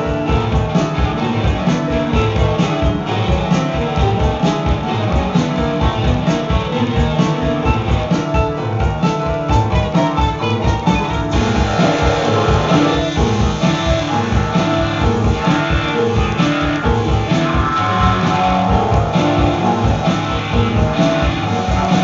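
Live instrumental rock band playing keyboards and electric guitar over a steady drum beat. The sound turns brighter and fuller about halfway through.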